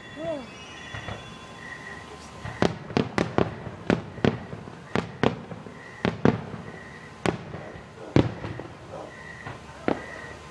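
Aerial fireworks shells bursting at a distance: a series of sharp bangs at irregular intervals, with several in quick succession about three seconds in.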